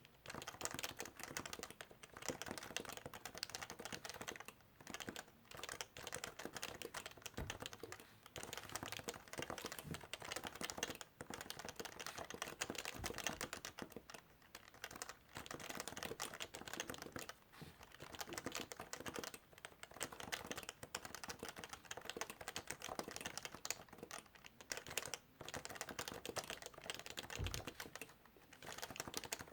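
Fast, steady typing on a Topre Realforce keyboard with electro-capacitive key switches: dense runs of key clicks broken by short pauses every couple of seconds, with an occasional deeper thump.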